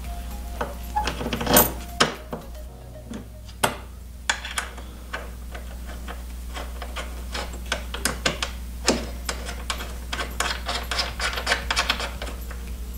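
Light metallic clicks and taps, in quick irregular runs that come thicker in the second half, from hands fitting a washer and threading a nut onto a snowmobile ski's mounting bolt.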